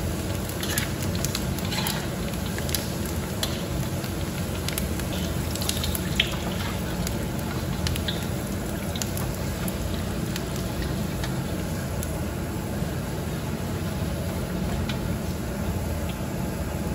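Pork skin deep-frying in a wok of very hot oil on its second fry to puff it: a steady sizzle with scattered crackles and pops over a low, even rumble. The pops thin out after about eight seconds as the puffed pieces are lifted out on a metal skimmer.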